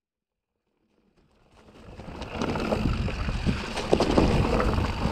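Santa Cruz Tallboy mountain bike ridden down leaf-covered dirt singletrack: tyres rolling over leaves and dirt with frequent small knocks and rattles from the bike over bumps, and wind buffeting the microphone. It fades in from silence about a second in and grows louder.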